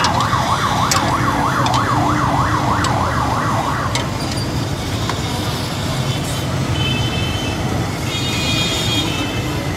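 A vehicle siren wailing in fast rising-and-falling sweeps, about four a second, that stops about four seconds in. Beneath it runs the steady low hum of a motorised stirrer churning peanuts and jaggery in a metal pot, with a few clicks.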